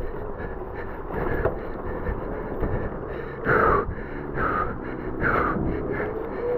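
Onewheel electric hub motor whining at a steady pitch that starts to climb near the end as the board picks up speed downhill. Underneath is a rough running noise from the tyre on dirt, and three short louder hisses come a little past halfway.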